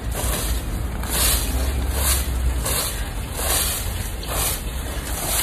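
Rhythmic scraping and rasping strokes, about one a second, from a hand-held garden cutting tool working through plants and soil, over a steady rumble of wind on the microphone.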